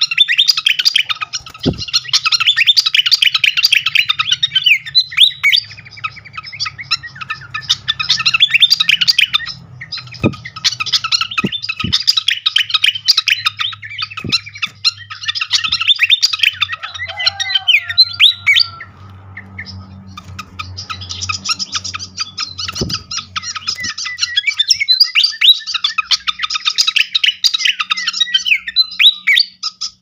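Malaysian pied fantail singing: long bursts of high, fast, squeaky chattering notes with short breaks, and a longer pause a little after halfway. A few soft knocks can be heard under it, and a faint low hum.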